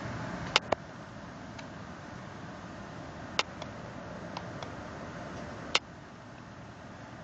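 Sharp clicks from the front-panel controls of a Zastone MP600 VHF mobile transceiver as its frequency is changed. There are four loud clicks, two close together about half a second in, one past three seconds and one near the end, with fainter ticks between. Under them runs a steady hiss that drops a step after the first clicks and again after the last.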